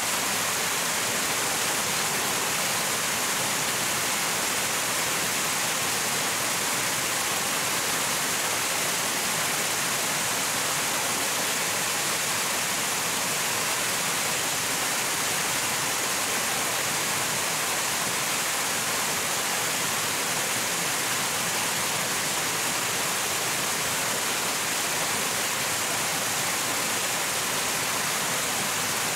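Steady, unbroken rush of water, an even hiss with no distinct drops or splashes.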